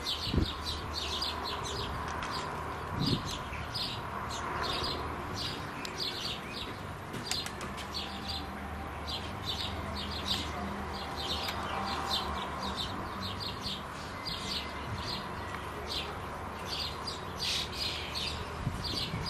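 House sparrows chirping: short, repeated high chirps, several a second, over a steady low background hum. There are two low thumps, about half a second in and about three seconds in.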